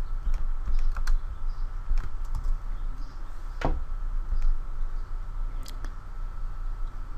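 Scattered clicks and taps of a computer keyboard and mouse, one louder stroke a little past the middle, over a steady low hum.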